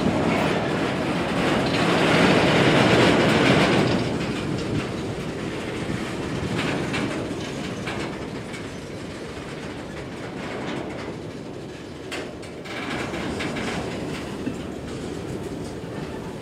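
Empty CSX coal hopper cars rolling past, their steel wheels rumbling and clicking on the rails. Loudest in the first four seconds, then easing off.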